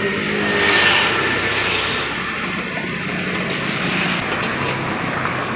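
Steady motor-vehicle engine and traffic noise, with no clear single event.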